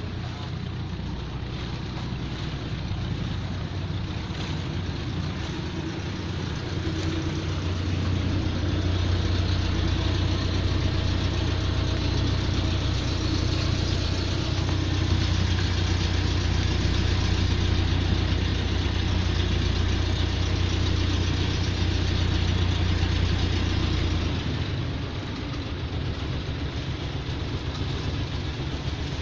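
Boat engine running steadily with a low hum, getting louder about eight seconds in and easing back again near the end.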